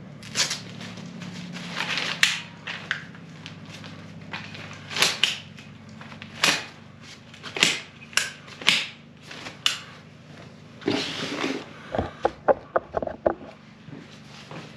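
Cliq compact folding camping chair being unfolded and set up by hand: the fabric seat rustling and the frame's parts knocking and clicking into place, with a quick run of sharp clicks near the end.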